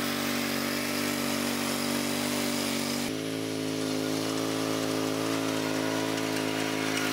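Toro Titan Max zero-turn mower's engine running steadily as the mower drives across the field, with a slight sudden change in pitch about three seconds in.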